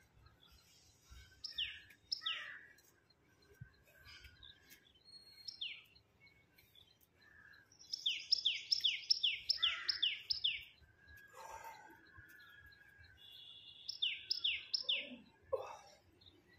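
Birds calling: quick high chirps that each sweep downward, a fast run of about nine in the middle and three or four more near the end, with scattered lower calls in between.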